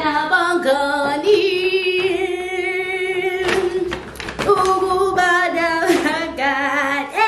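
A woman singing unaccompanied in long, drawn-out notes with a wavering vibrato, with a short break about halfway through.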